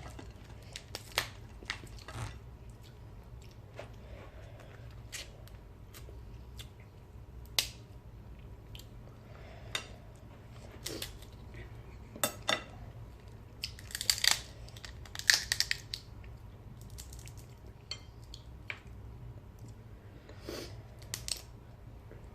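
A person chewing and biting fried fish and crab, with scattered short crunches and wet clicks. The loudest run of crunching comes about two-thirds of the way through.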